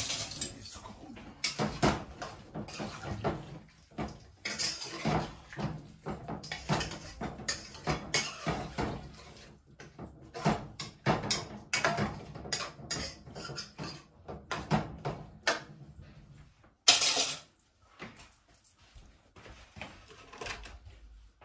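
Metal spoon clinking and scraping against a metal cooking pot as seasoned meat and vegetables are stirred: many short, irregular knocks, with one louder clank about three quarters of the way through.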